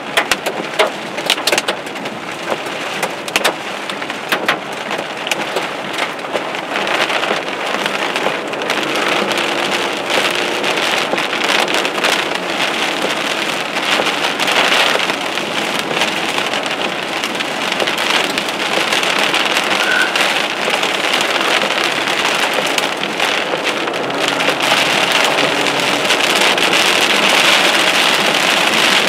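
Heavy rain pelting a car's windshield and body, heard from inside the car, as a steady dense hiss with many sharp taps of drops striking the glass in the first few seconds. The rain grows a little louder toward the end.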